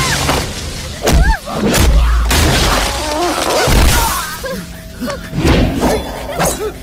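Action-film fight soundtrack: a dramatic background score with a series of heavy punch and impact hits, some with a crashing, shattering edge.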